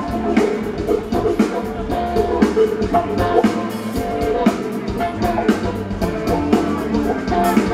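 Live rock band playing a jam: electric guitars, bass, keyboards and a drum kit, with steady drum hits.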